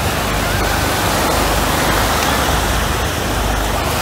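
Steady rushing roar of the Red Arrows' Hawk jets, flying in formation as they climb.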